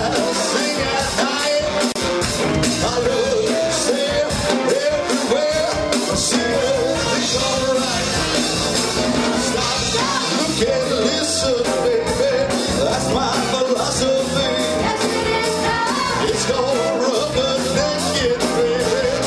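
Live rock and roll band playing a song, a lead singer carrying the melody with backing vocals over a steady beat.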